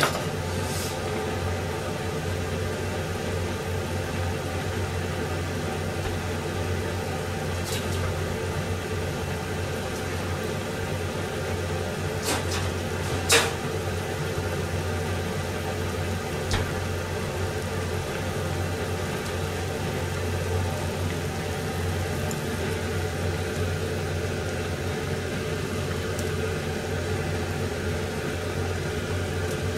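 Steady low mechanical hum of a kitchen appliance's motor running, with a few light clicks about 8 and 13 seconds in.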